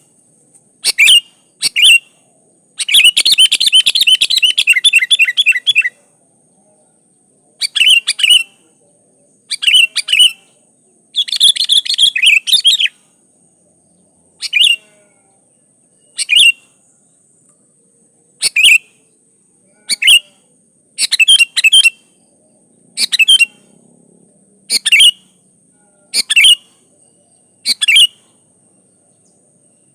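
Sooty-headed bulbul (kutilang) singing: short bubbly phrases repeated every second or two, with two longer rapid chattering runs, one a few seconds in and one about a third of the way through.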